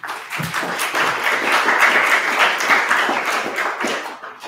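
Audience applauding, building up and then fading away near the end.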